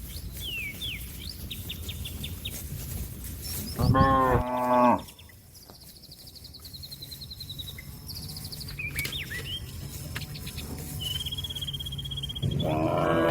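A cow mooing loudly, calling to a herd-mate that is out grazing: one call of about a second around four seconds in, and another starting near the end. Birds chirp faintly between the calls.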